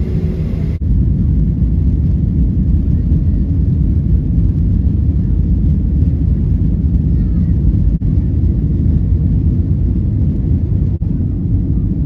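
Airliner's jet engines at takeoff power and runway rumble heard from inside the cabin: a loud, steady low roar that dips briefly three times, about a second in, near eight seconds and near eleven seconds.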